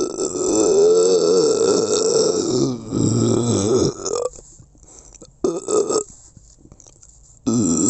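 A person belching, several drawn-out burps in a row with a wavering pitch: a long one of nearly three seconds, a second of about a second and a half, a short one in the middle, and another starting near the end.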